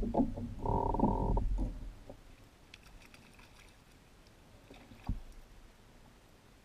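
Spinning fishing reel cranked to bring in a hooked trout: a buzzing gear whir in spurts through the first second and a half. Then faint splashing from the fish at the surface and a single knock about five seconds in.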